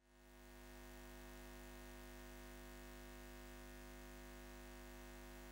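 A faint steady hum of many held tones, fading in over about the first second and then holding level.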